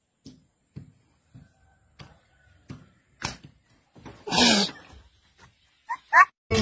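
A stick being twirled and swung: faint taps about every half second, then a louder swish about four seconds in, followed by two short rising squeaks near the end.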